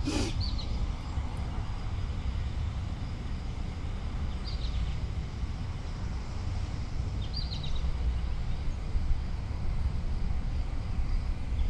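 Steady low rumbling noise, fluttering in level, with two faint, short bird chirps about four and seven seconds in.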